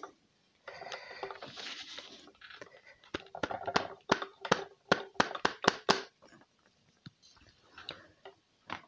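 Ground pastel powder hissing softly as it slides out of a tilted coffee grinder, then the grinder body being knocked by hand in a quick run of about a dozen sharp taps, about four a second, to shake out the last of the powder, followed by a few scattered taps.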